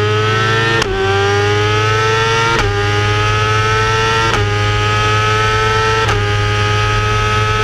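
BMW Cup race car's engine heard from inside the car under hard acceleration, the pitch rising and dropping sharply at four quick upshifts about every second and three-quarters, each gear climbing more slowly until the pitch levels off near the end.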